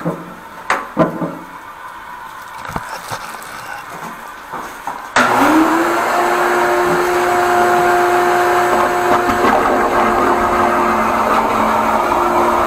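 A vacuum machine switches on about five seconds in. Its hose end is pressed into the toilet bowl's outlet to suck out the clog. The motor whines up in pitch and then runs steadily and loudly with a hum. A few light knocks come before it starts.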